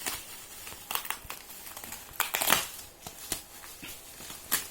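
Plastic bubble-wrap packing crinkling and rustling in irregular bursts as it is handled and pulled open, loudest about two and a half seconds in.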